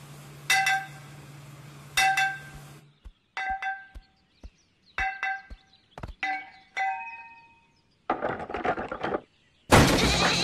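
A hammer striking metal in a series of ringing clangs. The first blows come about a second and a half apart over a low steady hum, then lighter, quicker clinks follow. Near the end there is a short rush of noise, then a sudden loud burst of noise.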